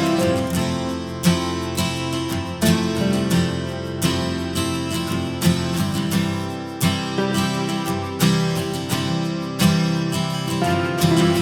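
Background music led by strummed acoustic guitar, with a strong accented stroke about every second and a half.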